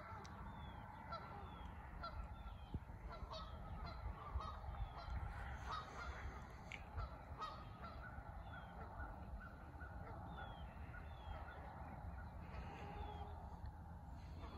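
Birds calling: many short calls overlapping, with a thin high chirp that falls in pitch, repeated about once a second, over a faint low rumble.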